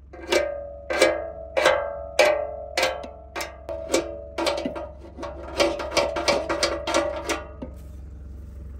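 Ringing metal-on-metal blows: a steel bar striking a drum mower's cutting blade that has been knocked and bent under, knocking it back into place. About twenty blows, first slow and then quicker from about four seconds in, stopping shortly before the end, over the low hum of the idling tractor.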